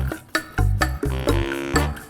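Upbeat background music with a bouncy bass line and a steady beat.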